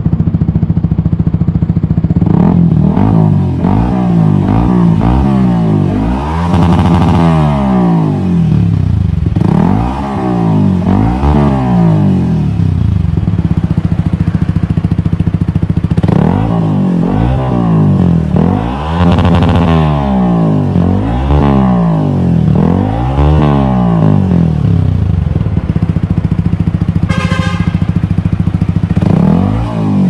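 Yamaha MT-15's 155 cc single-cylinder engine breathing through a Two Brothers Racing slip-on exhaust, blipped up and down in a dozen or so quick revs. It settles back to idle twice between the sets of revs.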